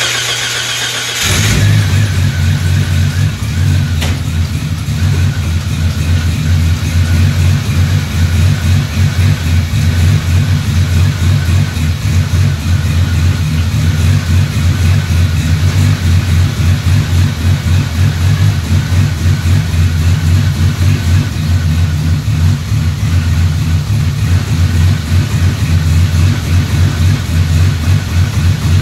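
The 1994 Jeep YJ's engine is cranked by the starter, catches about a second in and keeps running with an uneven, wavering note. This is the rough running that the owner traced to a faulty new crankshaft position sensor.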